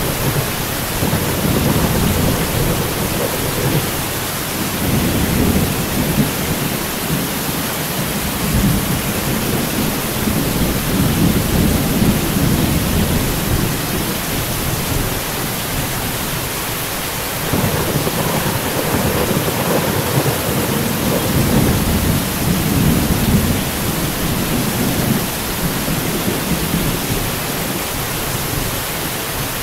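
Steady heavy rain hissing throughout, with thunder rumbling low in several long swells of a few seconds each, the longest and loudest starting a little past the middle.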